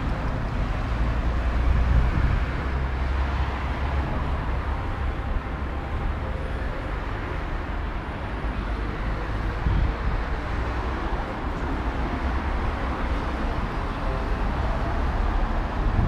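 Road traffic noise: a steady wash of passing cars with a deep rumble underneath.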